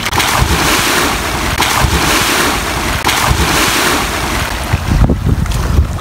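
A man diving into the sea with a splash, then the splashing of his kicks and strokes as he swims away. Wind rumbles on the microphone near the end.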